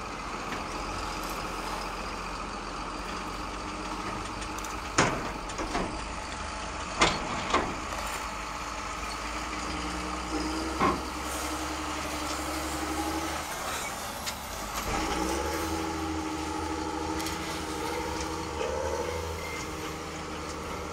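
Plastic toy wheel loader worked by hand, its bucket scraping sand and tipping it into a plastic toy dump truck, with a few sharp plastic knocks about 5, 7, 7.5 and 11 seconds in. A steady low hum runs underneath.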